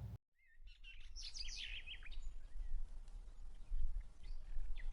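Small birds chirping and singing in quick, sliding notes over a steady low rumble, fading in just after a short silence.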